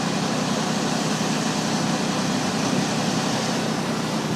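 John Deere Gator utility vehicle's engine running steadily as it drives along a paved road, with an even, unchanging low hum.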